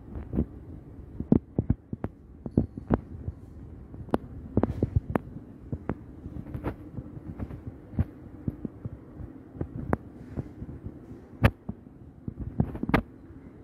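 A steady low hum with irregular knocks and clicks scattered through it, the loudest knock about three-quarters of the way in, as from a handheld phone being moved and handled while walking.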